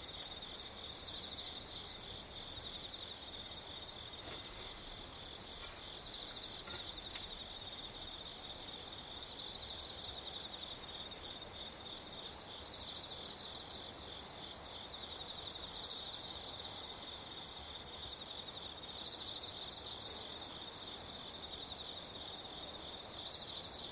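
Insects chirring steadily in several high-pitched bands, the lowest one with a fast pulsing texture.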